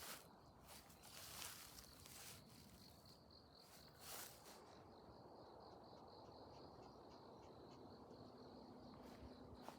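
Faint outdoor sound: an insect, cricket-like, chirping in a steady, finely pulsed high trill. Several rustles in the first half, the last about four seconds in.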